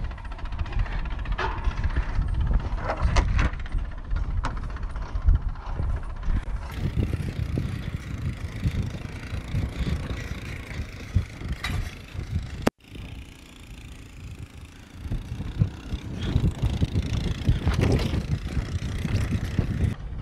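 ATV engine running as it tows a roping dummy, under a heavy low rumble of wind and motion on a camera worn by a rider at the lope, with a few sharp clicks. The sound drops out abruptly about two-thirds through, stays quieter for a couple of seconds, then builds back up.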